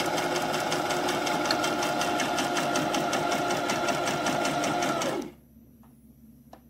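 Brother XM2701 electric sewing machine stitching at a steady speed in a fast, even rhythm. It stops abruptly about five seconds in, leaving only a faint click or two.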